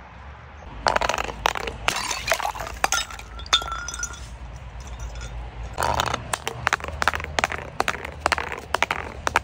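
Glass bottles breaking and crunching: dense runs of cracks and clinks start about a second in, ease off briefly near the middle and pick up again, over a low rumble. A short ringing glass tone sounds about three and a half seconds in.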